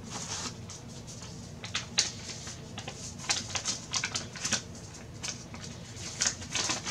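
Plastic packaging and a folded paper sheet rustling and crinkling as they are handled and unfolded, in irregular crisp crackles.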